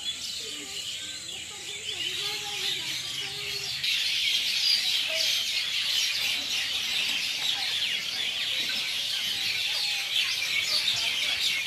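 A dense chorus of many birds chirping at once, louder from about four seconds in, with a thin steady high insect trill early on.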